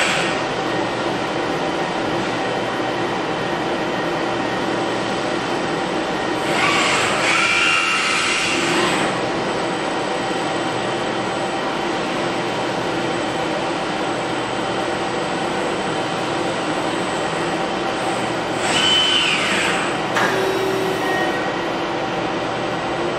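Fanuc CRX-20iA/L collaborative robot arm moving, its servo motors whining in two stretches of a couple of seconds each, rising and falling in pitch, about a third of the way in and again later. Under it runs the steady hum of a Dainichi DL530 CNC lathe.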